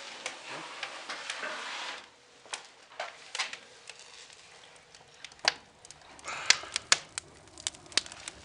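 Irregular sharp clicks and ticks, after a steady hiss that stops about two seconds in; the clicks come in a denser cluster near the end.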